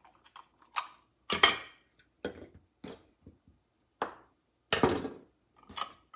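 Several separate clacks and knocks of plastic kitchen tools on a countertop: a cheese grater's plastic holder and pusher being handled and set down, and a chef's knife cutting through a block of cheese onto a plastic cutting mat. The loudest knocks come about a second and a half in and around five seconds in.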